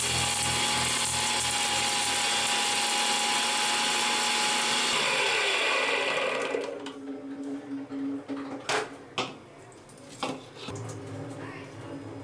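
Electric mixer grinder running at full speed, grinding dry spices in its stainless-steel jar with a steady whine. About six seconds in it is switched off and winds down. A few sharp knocks and clinks follow as the steel jar and lid are handled.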